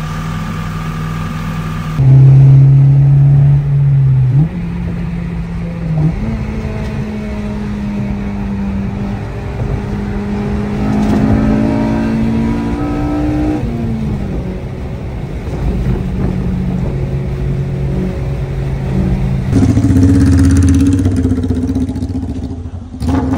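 Engines revving and running: a loud engine note held a couple of seconds in, ending in a quick rise, then a series of engine notes that step and glide up and down in pitch as vehicles accelerate. Near the end comes a second loud burst of engine noise from a motorcycle.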